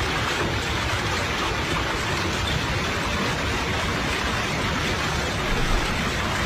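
Heavy rain in a strong windstorm: a steady, dense rush of noise.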